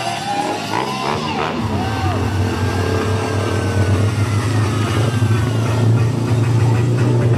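Loud music playing, with a steady low drone setting in about one and a half seconds in.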